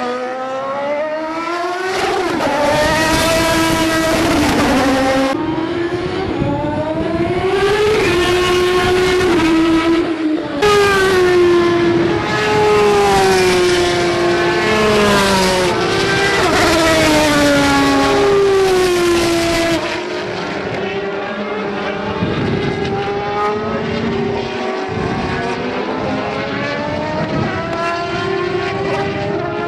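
Open-wheel single-seater racing car engines running at high revs as the cars go past on track, pitch climbing and dropping over and over.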